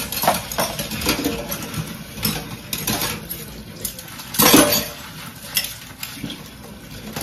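Dishes clattering and clinking in a kitchen sink as they are rinsed by hand, with a louder clatter about four and a half seconds in.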